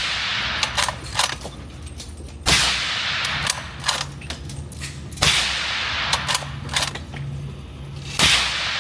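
Suppressed shots from a Q Mini Fix bolt-action rifle fitted with a Black Thunder Chicken suppressor. Three sharp cracks come roughly every two and a half seconds, each trailing a short echo in the indoor range. Lighter clicks fall between the shots.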